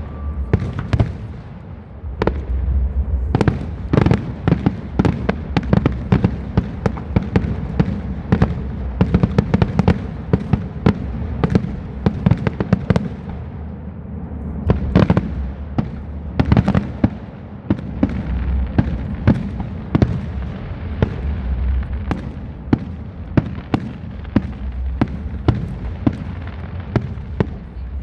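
Aerial fireworks going off in a rapid, continuous barrage: many sharp bangs and cracks a second over a steady low rumble.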